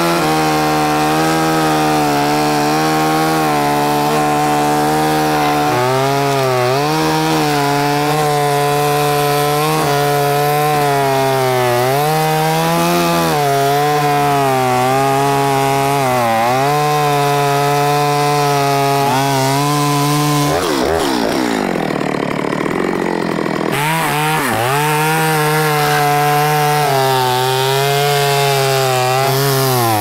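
Two-stroke chainsaw running under load as it cuts into a tree trunk, its engine note sagging and recovering again and again as the chain bites into the wood. A little past the middle the steady note breaks up for about three seconds, then settles back into the cut.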